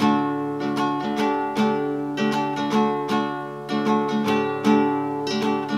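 Bright acoustic guitar music, picked and strummed, with notes struck about three times a second.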